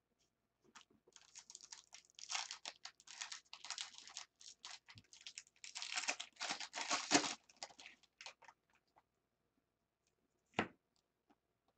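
Foil trading-card pack being torn open, its wrapper crinkling and rustling in quick bursts for several seconds. A single sharp tap follows a couple of seconds after the rustling stops.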